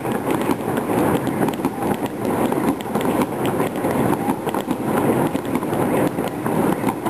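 Many fireworks going off at once: a loud, dense, unbroken crackle of overlapping bangs and pops.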